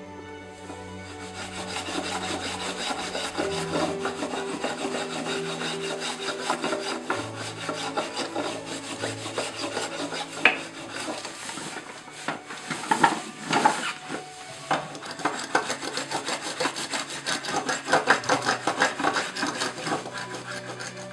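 Hand rasp scraping along an ash branch in quick, repeated strokes, starting about two seconds in, with quiet background music underneath.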